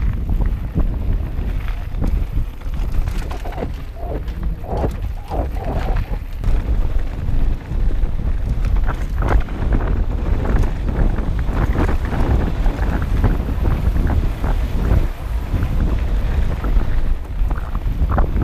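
Wind buffeting the microphone of an action camera on a mountain bike descending fast on a gravel trail, a heavy rumble throughout, with the tyres rolling over gravel and the bike knocking and rattling over bumps at irregular intervals.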